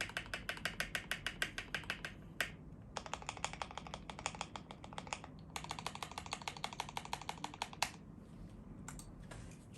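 Mechanical keyboard typing on a CIY68 with lubed JWICK Black linear switches, an aluminium plate and cherry-profile keycaps. It types in three fast runs of keystrokes at about ten a second, with a heavier single stroke after the first run and another after the third. A few scattered single presses follow near the end.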